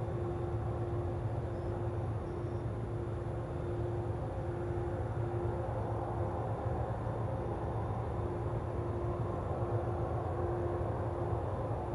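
Steady low industrial rumble with a held mid-pitched hum over it, like the drone of a large smelting plant. The hum fades briefly a few times and comes back.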